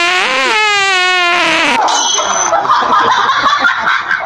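A long, squeaky fart sound effect played through a speaker, wavering in pitch, cutting off about two seconds in, then a jumble of laughter and voices.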